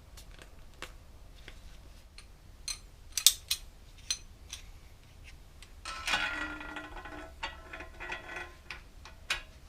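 Small metal clicks and taps as bicycle headset cups and homemade press hardware (bolts, washers) are handled. About six seconds in there is a short clatter of metal parts with a ringing tone.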